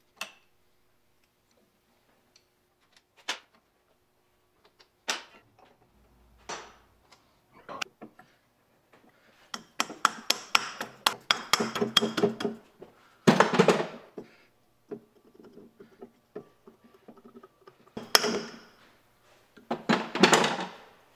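Metal hand-tool clinks and knocks on the finned cylinder head of a Willys-Knight sleeve-valve engine, as the head nuts are loosened and the binding head is pried loose. Single sharp clinks a few seconds apart come first. About halfway through there is a quick run of rapid taps, then a few heavier knocks near the end.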